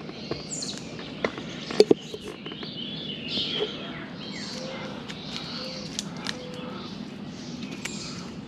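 Birds chirping over a steady outdoor hiss, with a few sharp clicks about one to two seconds in.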